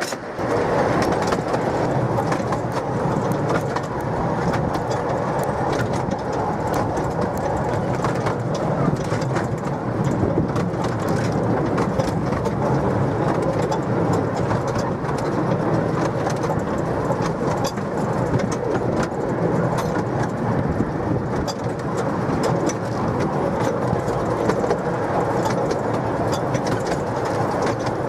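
A miniature railway train running: a steady rolling rumble and rattle of the wheels on the track, with frequent sharp clicks.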